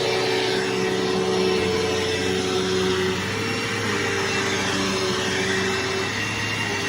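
Bissell Momentum 82G7-1 upright vacuum cleaner running while vacuuming: a steady motor hum and whine whose pitch shifts slightly now and then. Its brush roll is on the noisy side, which the owner puts down to bearings needing replacement.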